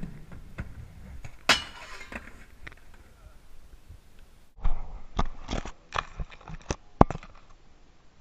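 Skateboard on concrete: wheels rolling with a low rumble and a sharp clack of the board about a second and a half in, then a quick run of sharp clacks and knocks of the board hitting the pavement from about halfway, the loudest near the end.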